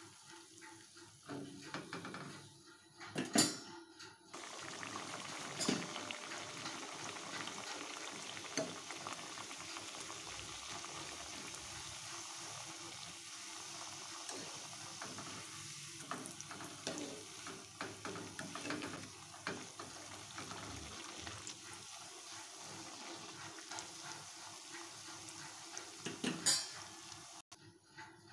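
Hot oil sizzling steadily as a wheat-flour chiroti deep-fries in a metal kadai; the sizzle comes up suddenly about four seconds in. A metal spoon clinks against the pan a few times, loudest a little after three seconds in and again near the end.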